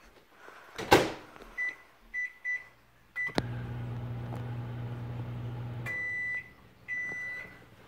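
Over-the-range microwave oven: the door clacks shut about a second in, four short keypad beeps follow, then the oven runs with a steady low hum. The hum stops and two longer beeps sound, the end-of-cycle signal that the cooking time is done.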